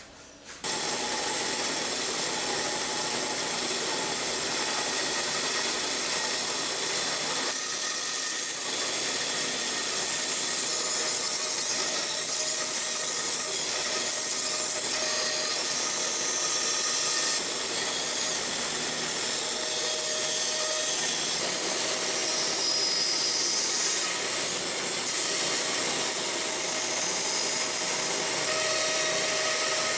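Homemade band saw running and cutting through a knife-handle block of ox horn and wood: a steady, loud sawing noise that starts abruptly about half a second in.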